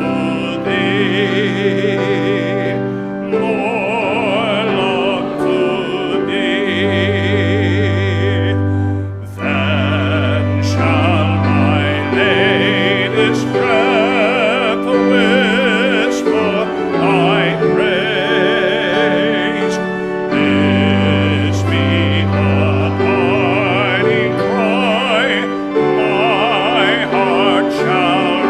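Sacred vocal music in a church: singing with a strong vibrato over long, held low accompaniment notes.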